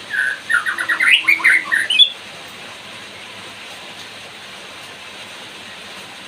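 White-rumped shama singing a fast burst of whistled notes for about two seconds, which stops abruptly and leaves a steady hiss of rain.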